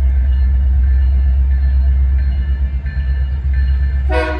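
Union Pacific diesel locomotives running light, their engines a steady heavy low rumble as they approach. Just before the end, the air horn begins a blast.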